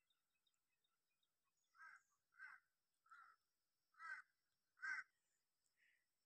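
A bird giving five short harsh calls, faint and under a second apart, starting about two seconds in.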